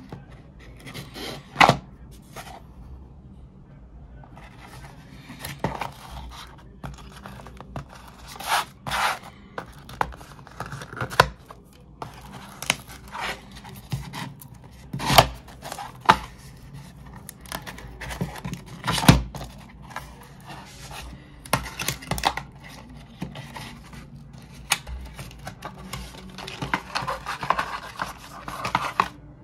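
Cardboard packaging of an Apple Watch charger box being handled: scattered taps, scrapes and rustles as it is turned over and opened, with a longer tearing rustle near the end as the seal tab is pulled.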